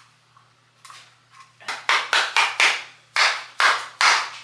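A run of sharp, loud knocks on a jar of coconut oil, four quick ones and then three slower ones, after a couple of faint taps: the jar is being knocked to loosen a lid that won't come open.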